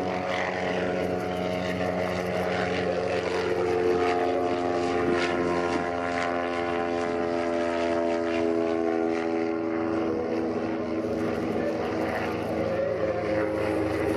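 Single-engine propeller light aircraft, a Republic Seabee amphibian, flying past with its piston engine and propeller running steadily. The pitch sags slightly through the middle as it passes.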